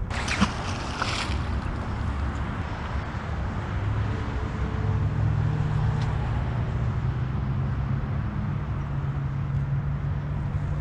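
A short burst of splashing at the start, with a sharp click in it, as the magnet lands in the water. After that comes a steady low motor drone that grows louder about halfway through.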